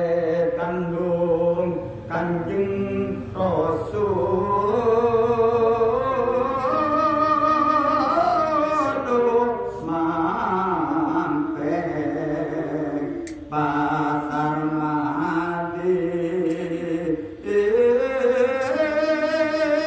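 A man chanting Javanese macapat verse solo into a microphone, unaccompanied. Long held notes glide up and down with ornaments, broken by short pauses for breath.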